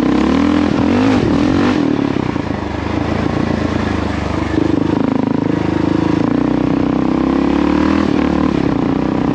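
Kawasaki KLR650's single-cylinder four-stroke engine running under way, its revs rising and falling with the throttle.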